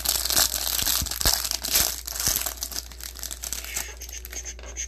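Packaging of a box of trading cards crinkling and tearing as it is ripped open, busy for the first three seconds and then dying down.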